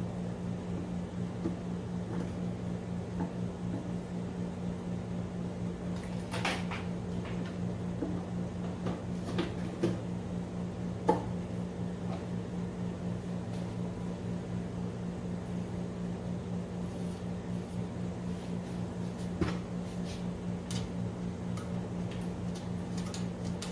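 Sheet-metal back plate and wiring being handled inside a steel electrical enclosure: a handful of scattered metallic clicks and knocks over a steady low hum.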